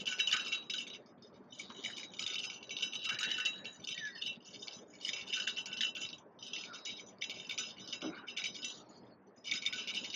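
Fishing reel's drag clicking in rapid stop-start runs as a hooked carp pulls line off the spool.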